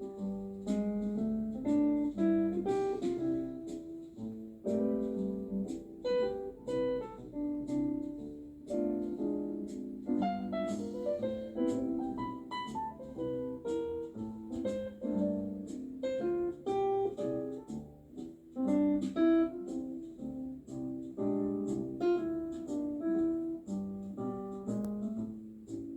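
Background instrumental music: a piano playing a flowing melody over chords, with some plucked guitar-like notes.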